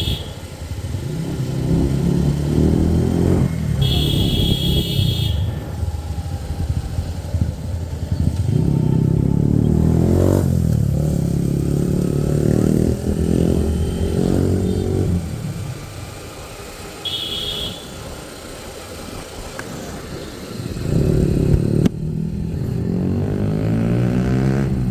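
Motorcycle engine running on the move, its pitch rising and falling as the rider speeds up and slows, with a horn beeping briefly three times. The engine goes quieter for a few seconds past the middle, then picks up again.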